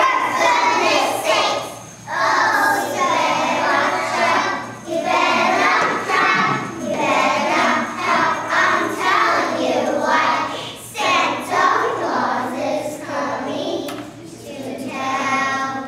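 A group of young children singing together in chorus.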